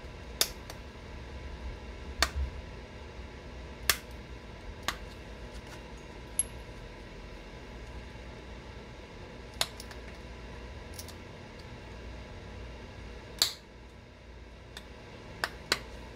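Sharp, separate clicks at irregular intervals, about ten in all, as small flakes snap off a stone point being pressure-flaked, over a steady low hum.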